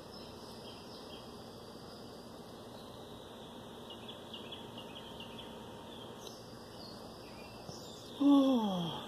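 Faint high outdoor chirping, then a little after eight seconds in one loud cat meow that falls in pitch and fades within about a second.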